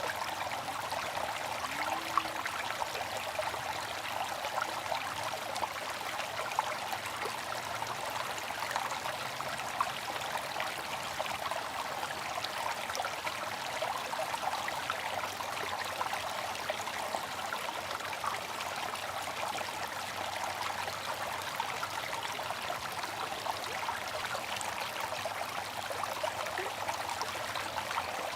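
Bamboo water fountain with water trickling steadily, flecked with small splashes and drips.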